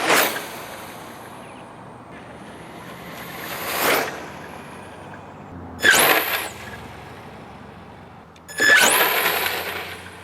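HPI Sprint 2 Flux RC car with a 5600Kv brushless motor whizzing past four times, its high motor whine swelling and fading with each pass. The last two passes start suddenly and sweep up sharply in pitch as the car accelerates.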